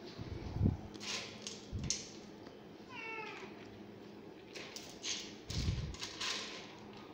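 Dry kibble rattling and scraping as a hand stirs it in a stainless steel bowl, with a few dull thumps. A cat gives one short meow about three seconds in.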